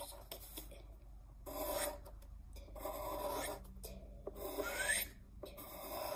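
Pencil drawing on paper: a scratchy rubbing in a series of short strokes, each about half a second long.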